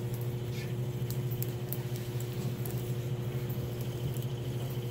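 Steady low mechanical hum with a couple of faint higher tones in it, unchanging throughout, over faint light ticks and rustles of hair being braided by hand.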